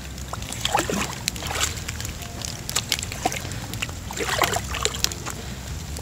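A dog wading in shallow lake water, sloshing and splashing, with two busier bursts of splashing about a second in and just after four seconds.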